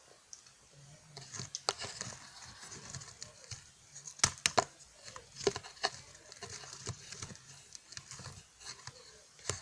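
Close-miked crunching and crackling of French Pie, a flaky puff-pastry biscuit, being bitten and chewed: irregular crisp crackles, loudest twice about four and a half seconds in and once more near the end.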